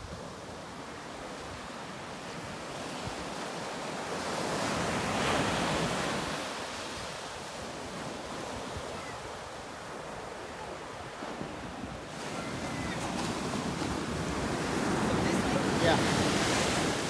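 Ocean surf breaking and washing up a sandy beach, swelling twice: once about five seconds in and again near the end.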